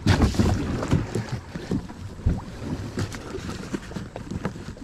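Water splashing around wading feet as a small boat is pushed through shallow river water, with wind rumbling on the microphone. A dull knock comes about two seconds in.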